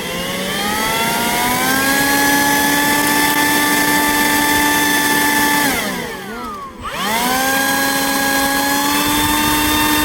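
Leaf blower motor spinning up with a rising whine and running at a steady high pitch, then briefly switched off so its pitch falls away about six seconds in, and started again, climbing back to full speed.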